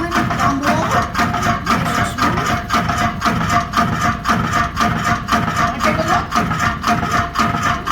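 Water-turbine-driven reciprocating mill saw running, its 7-foot blade and rocker arm clattering in an even rhythm of about four or five strokes a second over a steady mechanical hum.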